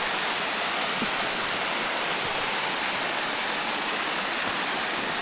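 Rushing water of a creek cascade and waterfall: a steady, even rush.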